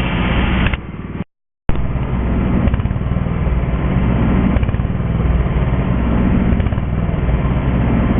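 Tractor engine running steadily, broken by a short dead gap just over a second in.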